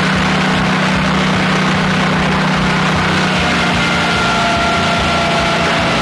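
Portable band sawmill running: a steady low machine hum, with a thin high whine that slowly drops in pitch in the second half.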